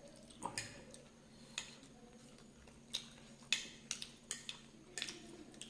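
A person biting and chewing hot chillies: irregular crisp crunches and mouth clicks, about eight in a few seconds.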